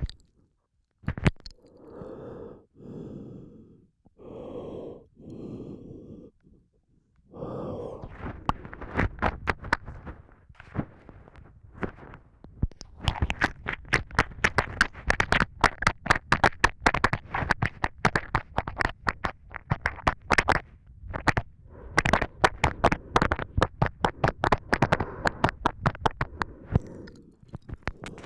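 A person's breathing and wet mouth noises picked up close on a lavalier microphone: four separate breaths in the first few seconds, then a long run of rapid saliva clicks and lip smacks with breath underneath.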